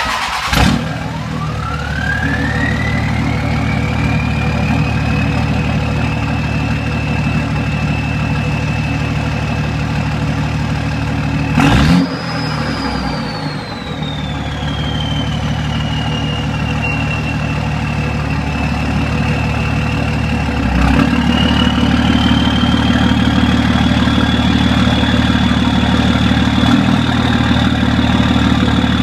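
5.9 Cummins inline-six turbo diesel starting and idling, with the HE351 turbo's billet compressor wheel whistling: a high whistle climbs as the turbo spools up and then holds steady. About twelve seconds in a short blip of the throttle sends the whistle higher, and it sinks slowly back over several seconds; near twenty-one seconds the engine speed steps up a little and the whistle rises and holds at a higher pitch.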